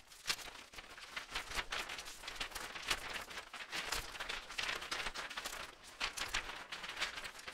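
Packaging being handled, with irregular rustling, crinkling and crackling.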